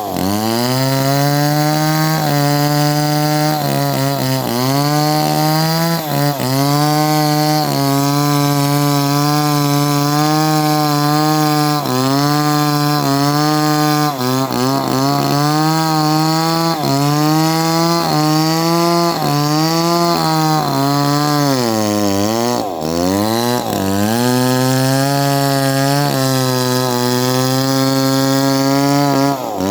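Chainsaw engine running at high revs, its pitch sagging and recovering every second or two, falling away sharply about two-thirds through and revving back up, then dropping again at the end.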